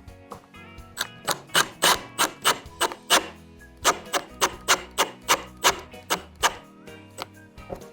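Background music with a quick, steady beat of sharp clicks about three a second over held tones.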